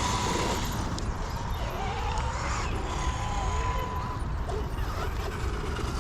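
Wind rumbling on the microphone, with faint voices in the background and a thin steady high tone that stops about four seconds in.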